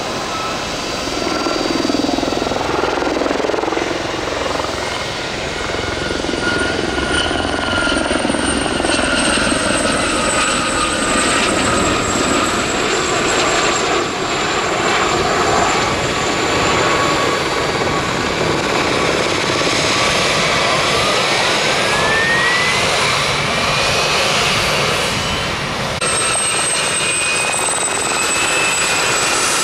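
A pair of Westland Gazelle HT3 helicopters flying a display, their Astazou turboshaft engines and fenestron ducted tail rotors giving a high whine over a steady rotor rush. About two-thirds through, one whine rises steadily in pitch, and the sound changes abruptly twice.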